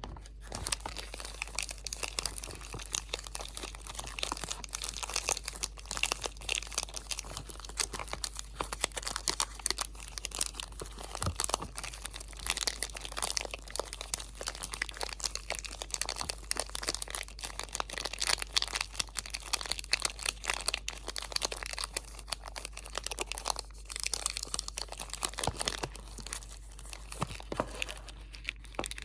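Crinkly material crumpled and crinkled close to the microphone, a dense run of irregular crackles without pause.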